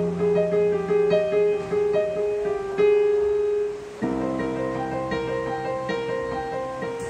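Portable electronic keyboard playing a melody of single notes over a held low chord. The chord changes about four seconds in.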